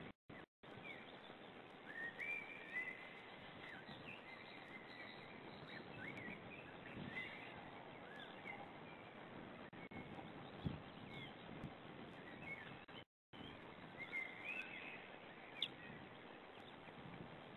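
Faint outdoor ambience at a nest-camera microphone: steady hiss with scattered short chirping bird calls throughout. There is an occasional soft knock, and the sound cuts out completely for a moment twice.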